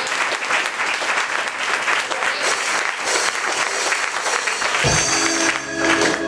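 Audience applauding, a dense patter of many hands clapping. Nearly five seconds in, music with a deep bass line starts up.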